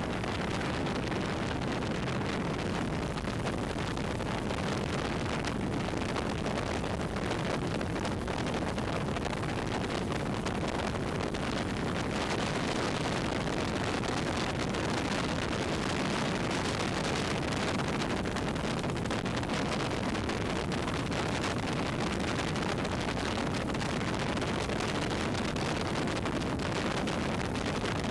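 Tow boat's motor running steadily at speed, mixed with heavy wind buffeting on the microphone and the rushing hiss of spray thrown up by a barefoot water skier.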